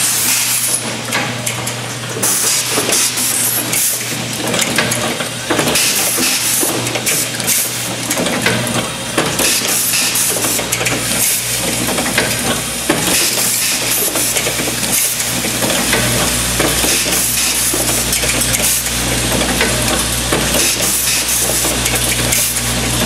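Automated grommet-assembly dial table machine running: a steady low hum from its vibratory bowl feeders under a continuous hiss and rapid, irregular clicking and clattering of parts and pneumatic pick-and-place grippers.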